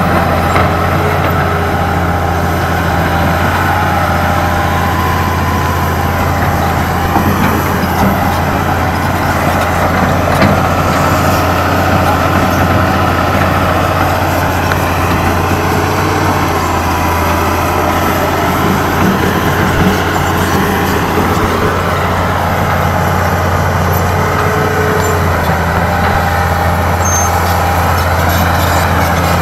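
Hitachi Zaxis 200 hydraulic excavator's diesel engine running steadily as the machine works, with a whine that rises and falls over the hum.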